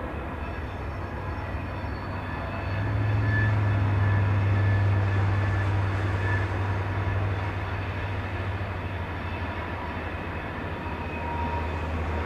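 Two 422 class diesel-electric locomotives, with EMD two-stroke V16 engines, working an oil train past. Their engines make a steady low drone that grows louder about three seconds in, eases off after a few seconds and swells again near the end.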